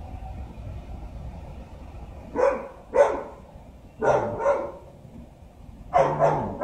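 A dog barking: six loud barks in three pairs, with short gaps between the pairs.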